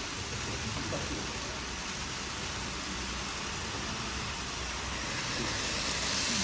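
N-gauge model trains running on the layout track: a steady rolling hiss with a faint low hum, growing a little louder near the end.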